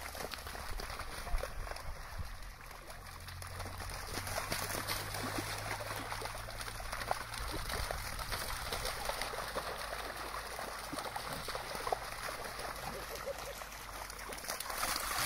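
Dogs running and splashing through shallow seawater: a steady wash of splashing with scattered sharper splashes.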